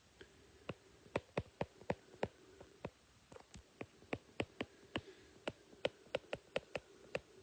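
Stylus tip tapping and clicking on a tablet screen while writing out words by hand: many short, sharp, irregular taps, several a second.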